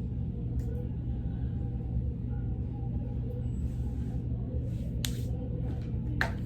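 Bass-heavy background song with a steady low rumble, and two short sharp clicks near the end.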